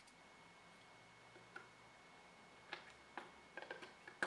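Faint clicks and taps of small plastic headphone parts being handled and fitted back together, a scattered handful in the second half, the last the loudest.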